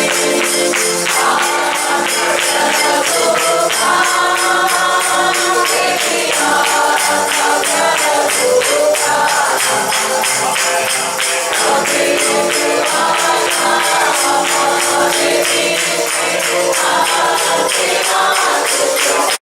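Worship music with a tambourine shaken and struck in a quick steady rhythm and voices singing in phrases over it. It cuts off suddenly near the end.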